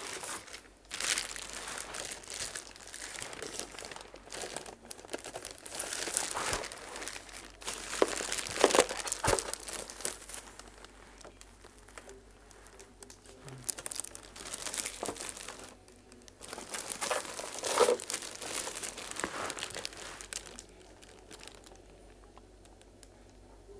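Clear plastic wrapping around a new quartz room heater crinkling and rustling in irregular bursts as the heater is handled and turned. The sound dies down near the end.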